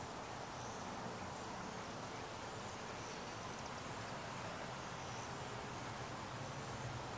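Quiet outdoor ambience: a steady hiss and low hum with faint, short high-pitched chirps every second or so.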